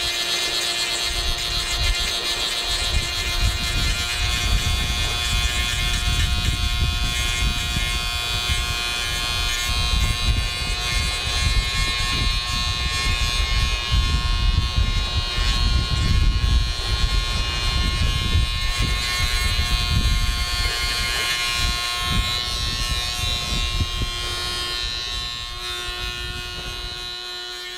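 Small high-speed rotary tool running at a steady speed with a buzzing whine, used to grind excess fiberglass off the inner race of a repaired autopilot drive ring. It fades out near the end.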